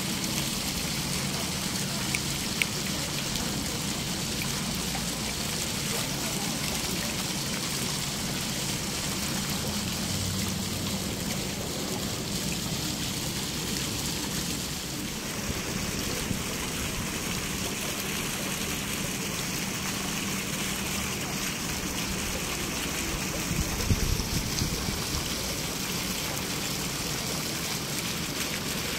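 Fountain water running and trickling steadily into its pool, with a couple of brief knocks, one near the start and a short cluster near the end.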